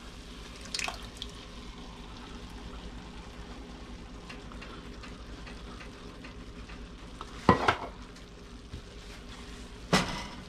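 Smoked sausage and vegetables sizzling faintly and steadily in a pot on lowered heat while crushed tomatoes are poured in from a can. Two sharp knocks come about seven and a half seconds in and again near the end.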